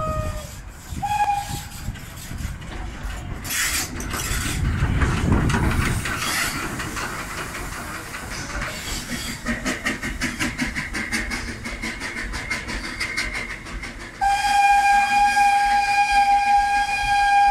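Small steam tank engine dressed as Thomas the Tank Engine. There is a brief whistle toot about a second in, then a loud rumble and hiss of steam as the engine passes close, then a fast, even rhythmic beat. Near the end the steam whistle gives one long, steady blast lasting about four seconds.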